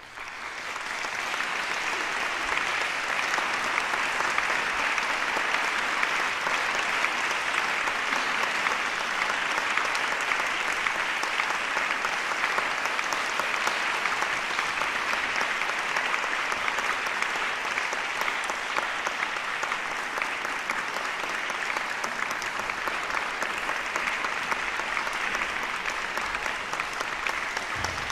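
Audience applauding, breaking out at once and carrying on steadily.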